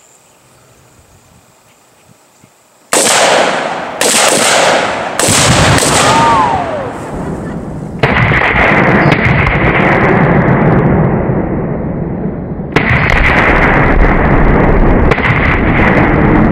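Rifle shots, starting about three seconds in with several sharp cracks a second or so apart, then binary exploding targets detonating with loud booms whose rumble lingers, another following a few seconds later.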